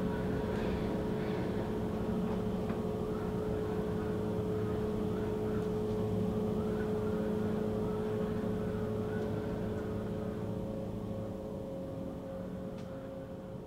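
A steady low droning hum with a few constant tones, fading out slowly near the end.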